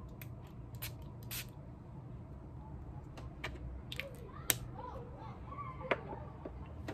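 A small perfume sample atomizer sprayed onto skin in several short puffs, mixed with light clicks from handling the plastic vial.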